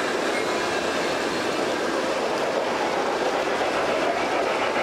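G-scale model trains running on their track, a steady rolling noise of wheels on rails.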